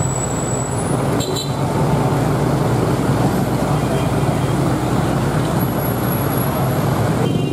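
Steady street traffic noise of motorbikes and cars going past, with a low steady hum underneath and a brief click about a second in.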